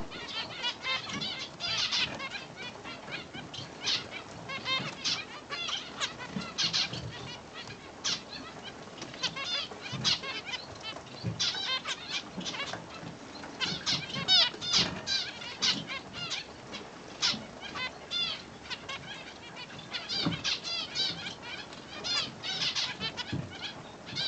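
Several small finches chirping and twittering in quick, short notes, many calls overlapping throughout.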